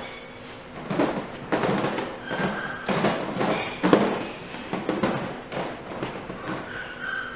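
Two teacup puppies, a poodle and a Maltese, romping on a blanket in a wire playpen: irregular thumps and scuffles, with a few short high-pitched squeaks.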